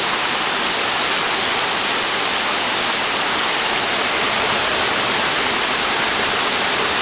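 Rushing water of a rocky creek, a steady, even hiss that does not change.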